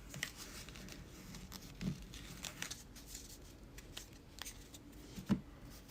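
Trading cards and foil card-pack wrappers being handled: faint crinkling and light ticks of cards being sorted, with two soft knocks, one about two seconds in and one near the end.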